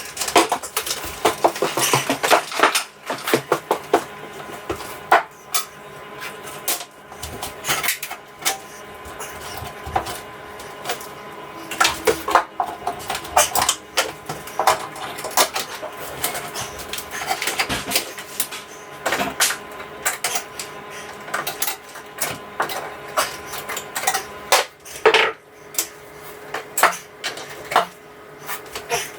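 Irregular clicking, tapping and clattering of hand tools and small metal hardware being handled during electrical work, with no steady rhythm.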